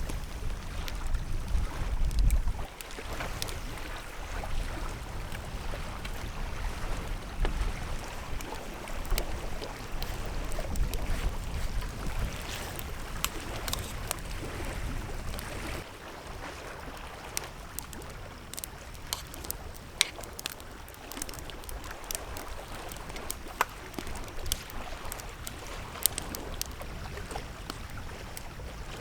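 Lake water splashing and lapping around a canoe, with wind buffeting the microphone for about the first half. After the wind drops, scattered small sharp ticks and drips follow.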